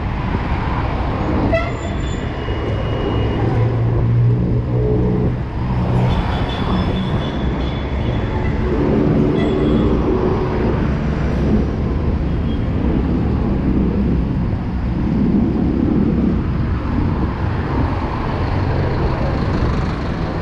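Street traffic: a steady rumble of passing engines, with a heavier engine passing twice, around four and nine seconds in. Brief high-pitched tones sound a couple of times in the first half.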